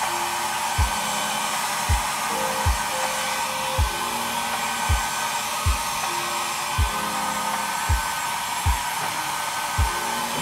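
Handheld hair dryer blowing steadily, a loud even rush. Under it, background music's low beat thumps about once a second.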